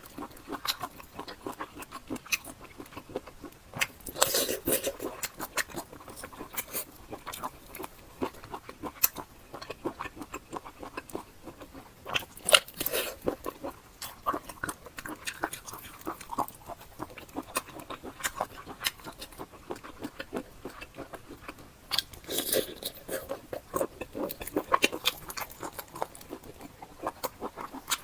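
Close-miked eating: chewing and biting with many wet mouth clicks and smacks, louder in bouts several times.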